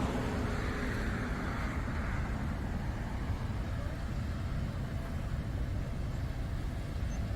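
Road traffic noise: a steady low rumble of vehicles, with one vehicle passing by in the first couple of seconds and fading away.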